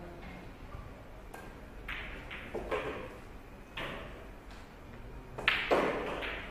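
Scattered sharp clicks and knocks, about six of them, the loudest and longest near the end.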